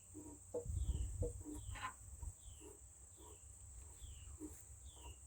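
Farmyard ambience: a bird repeats a short falling chirp about once a second over a steady high insect drone, with short low clucking notes in between.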